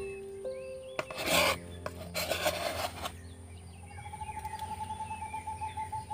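Scraping and rasping in two short bursts as crushed ginger is scraped onto a steel plate. From about four seconds in, a rapid pulsing trill of about seven pulses a second.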